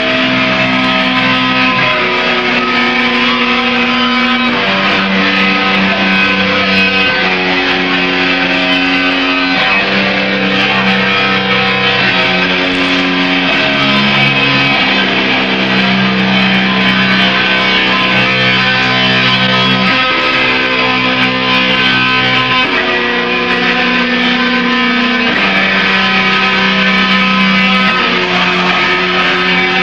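A death metal band playing: distorted electric guitars and bass on a slow riff of long held low notes that change every one to three seconds, with drums and cymbals underneath.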